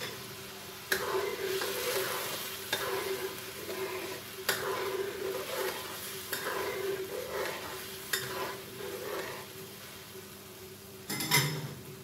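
Spatula stirring and scraping blended chili paste in a wok, the paste sizzling as it fries down until the oil separates. A run of scraping strokes with a few sharp clicks, and one louder knock near the end.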